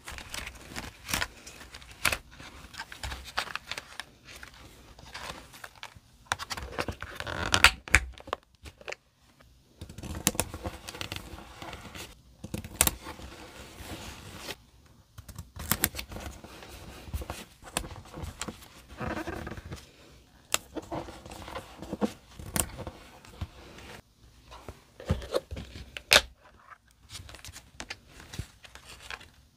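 Fingers rummaging through a plastic box of die-cut paper stickers: irregular paper rustling and crinkling, with scattered sharp clicks.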